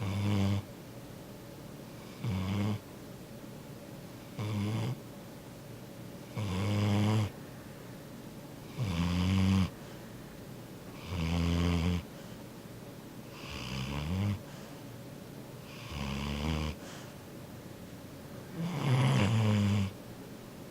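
Sleeping yellow Labrador retriever snoring loudly, nine snores at an even pace of about one every two seconds.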